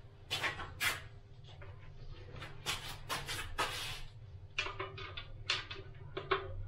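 Hands working at a white plastic wall fitting and its cable, giving a run of short scrapes, rustles and sharp clicks over a steady low hum.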